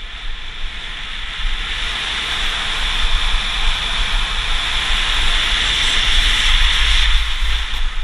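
Wind rushing over the microphone of a body-worn camera during a fast downhill ski run, with the skis hissing over the groomed snow; the noise builds steadily as speed increases, with a low buffeting rumble underneath.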